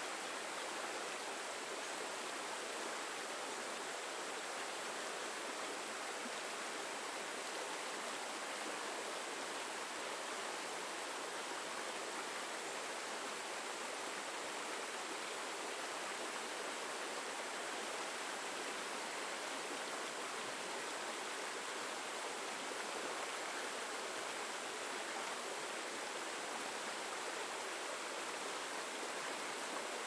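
Shallow rocky stream rushing and splashing over boulders in a steady, unbroken flow: a bright, hissing rush with little low rumble.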